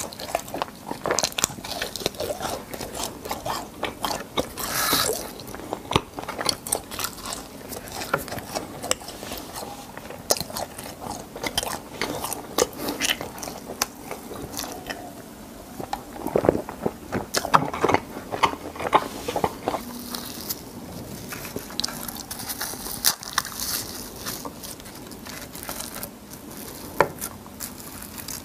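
Close-miked crunching and chewing of crispy fried cheese balls: many small crackly bites and wet mouth sounds, with a drink of cola swallowed about halfway through.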